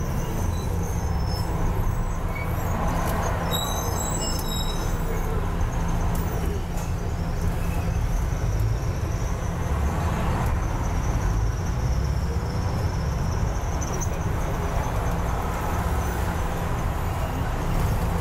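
Double-decker bus in motion, heard from the upper deck: a steady low engine and road rumble, with a faint high-pitched whine running through it.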